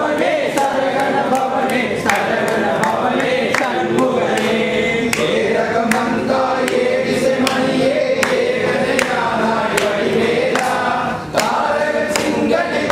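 A group of men singing a Tamil devotional hymn together, with sharp strikes keeping a steady beat.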